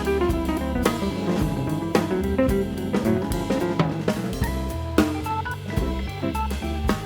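Background music: an upbeat instrumental with a drum kit keeping a steady beat under bass and melody notes.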